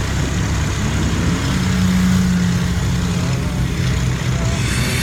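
ATV engine running under way, its note rising about a second in and holding for a couple of seconds before easing back, under a steady rush of wind noise.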